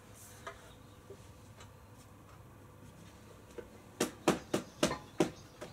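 Handling noise from parts being worked on: a few quiet seconds, then a quick run of five or six sharp light clicks and taps over about a second and a half near the end.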